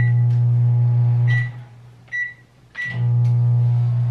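Microwave oven running with a steady low hum. It stops about a second and a half in, gives a few short beeps, and starts running again about three seconds in.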